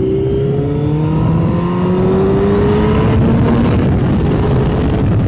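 Yamaha Fazer 600's inline-four engine pulling hard as the motorcycle accelerates, its note rising steadily in pitch, with wind rush growing as it gathers speed.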